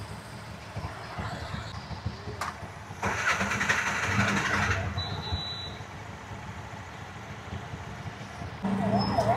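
Auto-rickshaw engine running with surrounding traffic, a steady low rumble that swells into a louder rush of noise from about three to five seconds in and rises again near the end.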